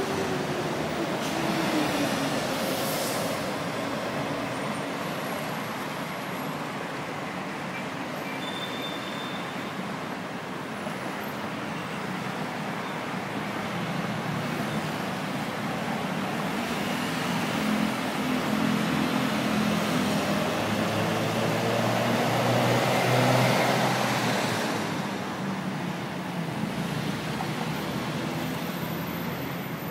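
Dense rush-hour road traffic: a steady wash of engine and tyre noise from many vehicles. About two-thirds of the way through, one engine grows louder as it passes and then fades.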